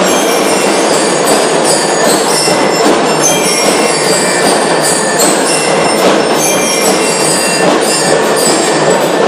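A drum and lyre corps playing: loud, unbroken drumming with short high bell-lyre notes ringing out over it.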